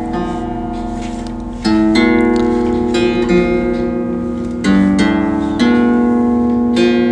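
Background instrumental music: a plucked-string instrument playing held chords that change every second or two.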